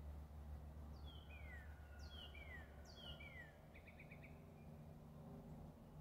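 Faint birdsong: a songbird sings the same phrase of falling whistled notes three times, about a second apart, then a quick run of about five short notes, over a low steady rumble.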